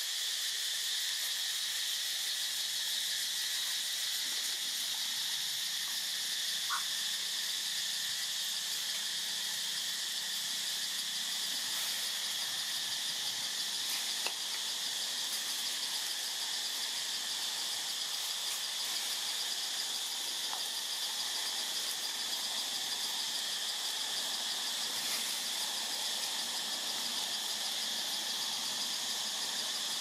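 Steady, high-pitched chorus of forest insects, a continuous shrill buzz with a fast pulse, with a few faint clicks.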